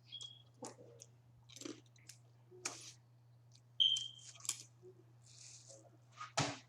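Close-up eating of boiled crawfish: shells cracking and peeling, wet squishes and chewing in short irregular bursts. Two brief high squeaks, about a quarter second in and again nearly four seconds in, the second the loudest sound.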